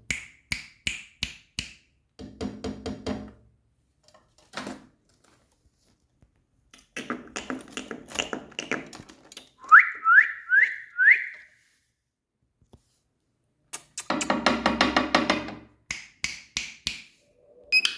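Indian ringneck parrot vocalising in bursts: rapid trains of clicks, harsh buzzy chatter, and about a third of the way in, four short rising whistles in a row.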